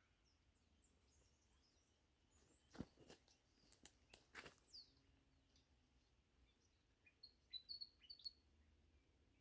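Near silence in a garden: a few faint clicks and taps around three to five seconds in, then faint short high bird chirps near the end.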